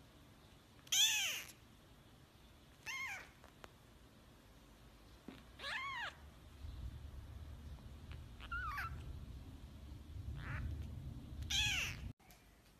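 Newborn kitten mewing: about six short, high, thin calls a second or two apart, each rising then falling in pitch. A low rumbling noise sits under the later calls.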